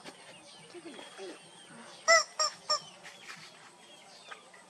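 Rubber chicken squeeze toy squeezed three times in quick succession, giving three loud honking squawks about two seconds in, the first the longest.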